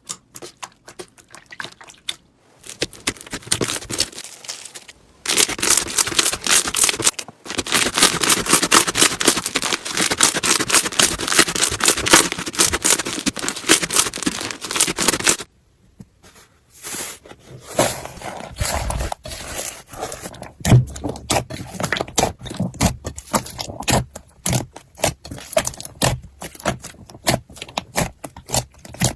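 Slime being squeezed and pressed by hand, crackling and popping with dense fine clicks. The clicking stops briefly about halfway through, then resumes more sparsely with a few soft low thuds.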